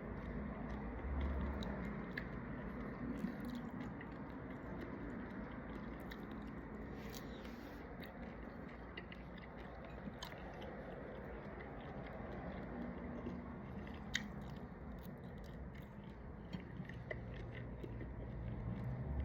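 A person chewing and biting into shrimp, with wet mouth sounds and scattered small clicks over a steady low background hum.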